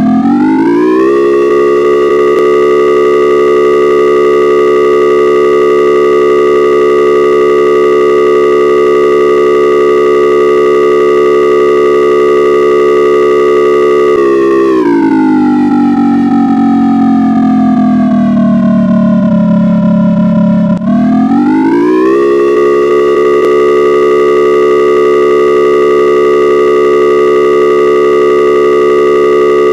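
Emergency alert alarm sounding as a civil-defence-style warning siren: a chord of several steady tones winds up quickly and holds. About halfway through it slowly winds down in pitch for several seconds, then climbs quickly back to full pitch and holds again.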